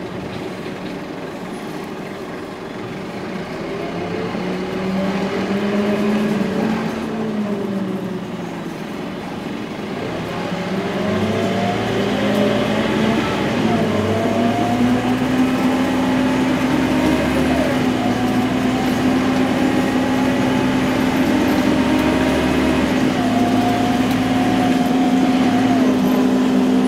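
Scania OmniLink single-decker bus engine heard from inside the passenger cabin while the bus drives and accelerates. Its pitch rises and drops back several times as the automatic gearbox changes gear, then holds steady.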